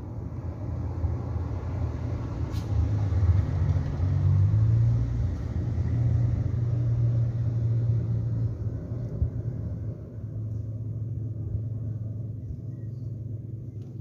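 Low rumble of a running engine with a steady hum, swelling a few seconds in and easing off after about eight seconds.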